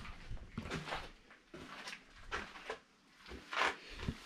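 Handling noise from a handheld camera being moved: scattered rustles and light knocks, the loudest about three and a half seconds in.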